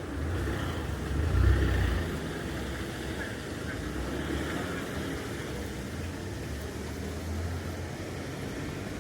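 A motor vehicle's engine rumbling close by in city traffic, loudest about a second and a half in, over a steady street hiss.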